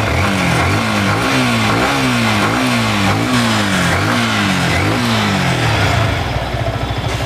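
Yamaha R15 V3 BS6's 155 cc single-cylinder engine revved in a quick series of throttle blips, each rising and falling in pitch, then settling to a steady idle near the end. It is running again after its broken magneto one-way clutch nuts were replaced.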